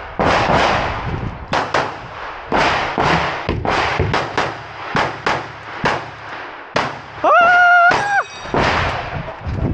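Semi-automatic pistol fired in a fast, uneven string of shots, several a second, each crack followed by a short ring off the surrounding walls. Just after seven seconds in, a loud steady held tone lasts just under a second.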